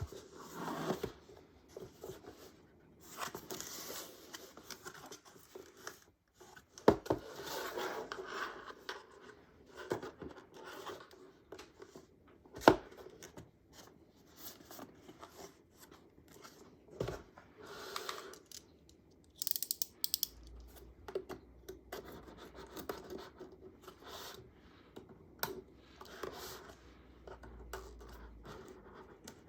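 Packaging being handled and opened by hand: irregular scraping, rubbing and tearing, with many small clicks and two sharp knocks, about seven and twelve seconds in.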